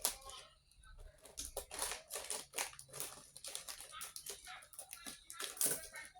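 Plastic snack-packet wrappers crinkling and rustling in irregular short crackles as they are handled and opened.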